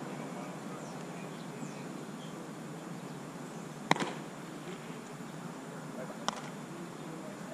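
Two sharp smacks of a baseball during play, a loud one about four seconds in with a quick second tap right after it, and a fainter one a little past six seconds, over the steady open-air hum of the ballpark.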